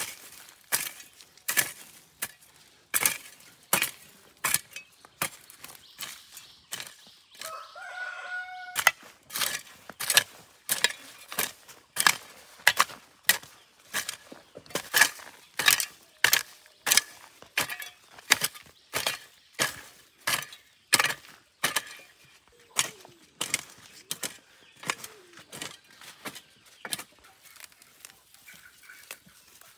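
Sharp, evenly spaced strikes repeating about twice a second, with a short chicken call about eight seconds in.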